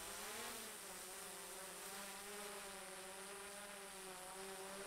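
Small quadcopter drone hovering about 50 feet away: a steady, faint propeller buzz whose pitch wobbles slightly.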